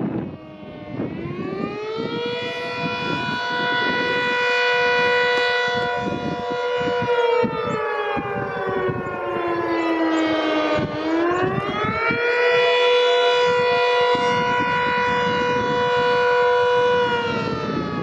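Refinery air raid siren sounding its test. It winds up about a second in and holds a steady wail, then slowly falls in pitch. It winds back up sharply, holds again, and begins to fall away near the end.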